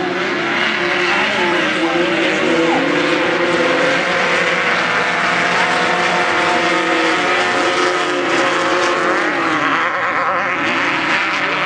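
Engines of several off-road race vehicles running hard, their pitch rising and falling as they rev and race past.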